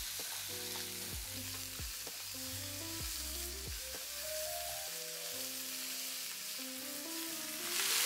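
Pork chops sizzling as they sear in a cast iron skillet, heard softly under background music with a slow run of held notes. Near the end the music drops away and the sizzle gets clearly louder.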